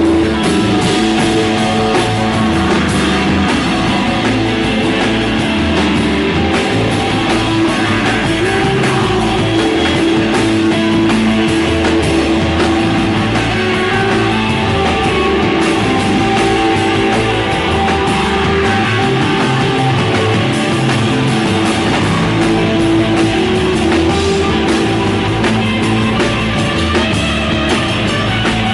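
Rock band playing live, with electric guitar and drums, steady and loud.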